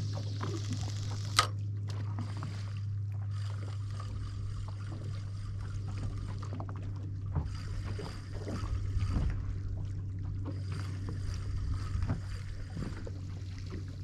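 Boat engine running steadily with a constant low hum, with faint water noise against the hull; a single sharp click about a second and a half in.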